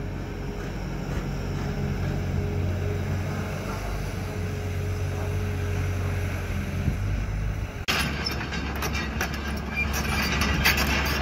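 Hydraulic excavator's diesel engine running steadily while a Kobelco digger dumps soil and swings. About eight seconds in the sound switches abruptly to a Caterpillar excavator running, with many sharp metal clanks over the engine.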